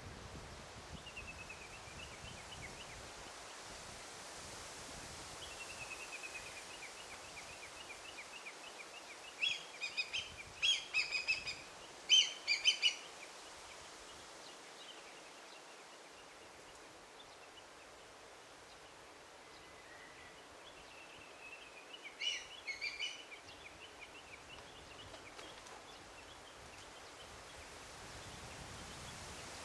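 Forest ambience of small birds singing over a faint steady hiss. The loudest part is a run of quick, bright chirping notes about a third of the way through, with a shorter burst about two-thirds through and softer trills in between.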